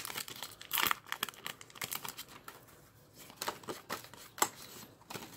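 Foil wrapper of a Pokémon trading card booster pack crinkling as the cards are slid out and flicked through by hand, a string of short rustles and clicks that thins out toward the end.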